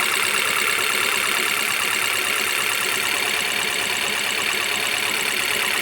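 Jeep Compass petrol engine idling steadily after a full overhaul, running smoothly with no knocking.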